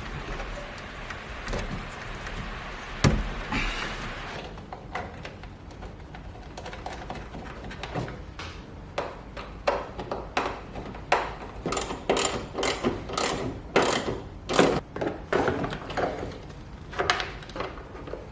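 Irregular clicks and knocks of hand tools and metal parts being handled, growing thicker in the second half, with a sharp knock about three seconds in over a steady hiss.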